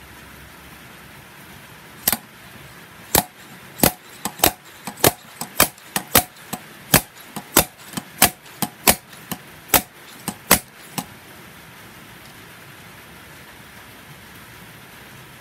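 Slide-hammer injector puller: its sliding weight slammed against the stop again and again, about two dozen sharp metallic knocks at two or three a second, stopping about eleven seconds in. It is yanking a stuck fuel injector out of a BMW N54 cylinder head.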